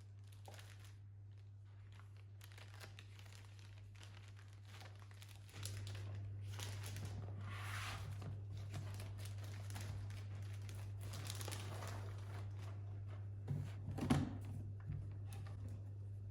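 Crinkly wrapping being handled, crumpled and rustled in short irregular strokes, with a louder burst of crinkling near the end. A steady low hum runs underneath and gets louder about five seconds in.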